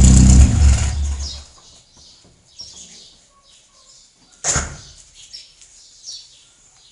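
Chevrolet Chevette 1.4 four-cylinder petrol engine running loudly, then stopping about half a second in and dying away over about a second. Birds chirp faintly in the quiet that follows, and a single sharp knock sounds about four and a half seconds in.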